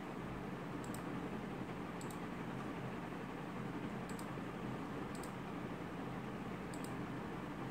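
Computer mouse button clicking five times, a second or two apart, over a steady hiss and low hum.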